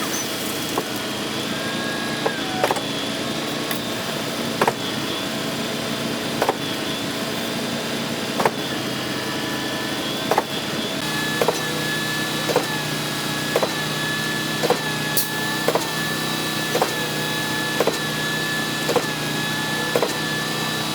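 A machine running steadily, with sharp regular knocks about every two seconds that quicken to about one a second around halfway through, when a steady high tone joins in.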